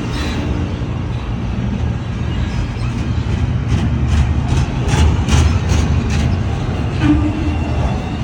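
Freight cars of a long train rolling past slowly: a steady low rumble of wheels on rail, with a quick run of wheel clicks over rail joints about halfway through.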